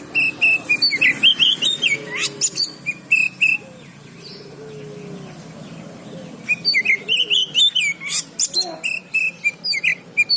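Oriental magpie-robin singing in two runs of quick, loud whistled and chattering notes, with a pause of about three seconds between them. A low murmur with a few falling lower calls runs underneath.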